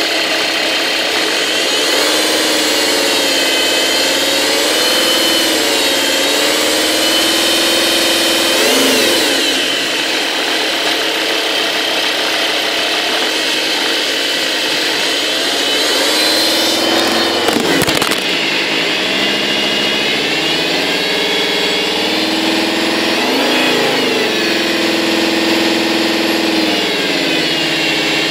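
Alfa 156 2.4 JTD five-cylinder diesel running, with a whine from the auxiliary belt area whose pitch rises and falls with engine speed as it is revved briefly three times. The owner does not know the cause of the whine. A short rattle of clicks sounds near the second rev.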